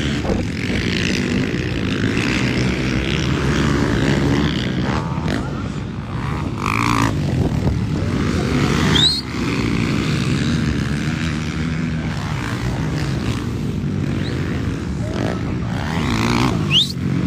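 Several motocross bikes racing on the dirt track, their engines overlapping in a steady drone.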